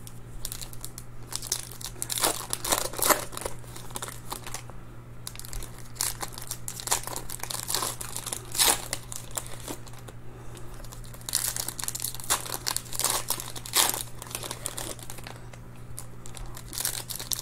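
Foil wrappers of 2020 Panini Chronicles football card packs crinkling and tearing as they are ripped open by hand, in short spells of crackle throughout.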